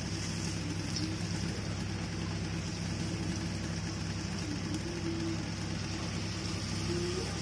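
Golgappa puris deep-frying in a wok of hot oil, the oil sizzling steadily, over a steady low hum.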